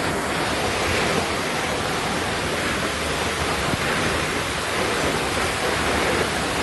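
Muddy floodwater rushing steadily through an overflowing storm channel.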